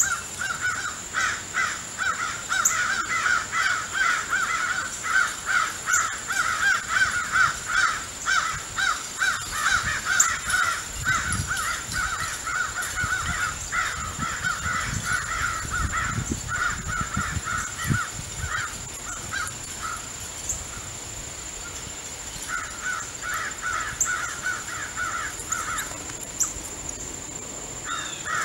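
Crows cawing in fast runs of harsh calls, about four a second, breaking off for a couple of seconds around two-thirds of the way through and then starting up again. A steady high-pitched whine runs underneath.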